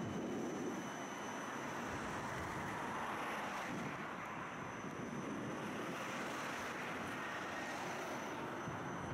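Tram running steadily, heard from inside the car: an even rumble and hiss of the ride.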